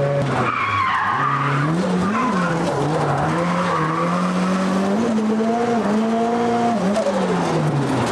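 Mazda Miata's four-cylinder engine heard from inside the cabin, its pitch dropping and rising again several times as the throttle works, with tyres skidding and squealing. The car is being slid on its newly fitted hydraulic handbrake.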